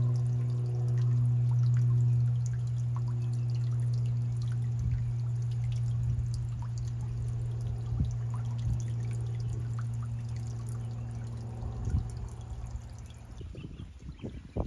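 A steady low hum with a few overtones over trickling and dripping water; the hum drops away about thirteen seconds in, leaving the water and some small splashes.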